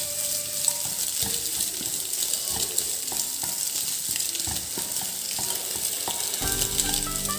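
Chopped egg and onion filling sizzling in oil in a nonstick pan while a wooden spatula stirs and scrapes through it, with scattered soft knocks of the spatula. Background music fades out early and comes back near the end.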